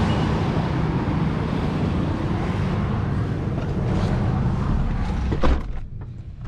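Busy road traffic noise, a loud steady rush. Near the end a single thump comes as a car door shuts, after which it is quieter.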